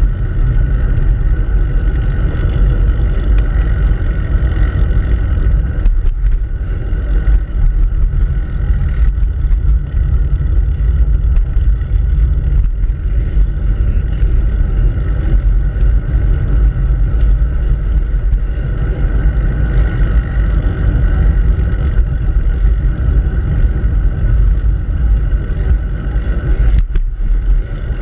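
Wind rushing over the microphone of a handlebar-mounted action camera on a moving bicycle: a steady, loud, deep rumble that eases briefly near the end.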